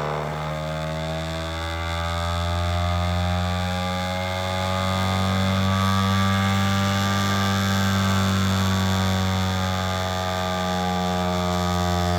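Brushless DC motor spinning the KidWind GenX axial-flux alternator's magnet rotor at speed, a steady hum and whine with many overtones whose pitch creeps up and wavers a little. The magnet rotor is pushed back from the coils, which lets it run faster and draw more power.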